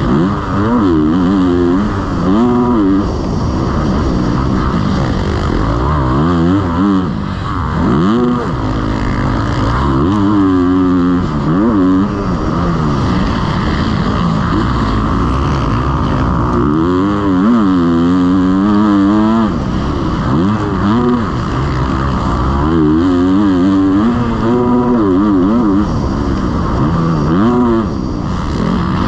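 Motocross bike engines racing on a dirt track, the revs repeatedly climbing and dropping with throttle and gear changes.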